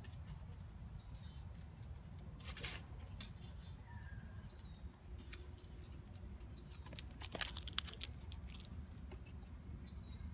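Black squirrel scampering over dry leaf litter, crackling rustles in two clusters: a short one about two and a half seconds in and a longer one from about seven to nine seconds, over a steady low rumble.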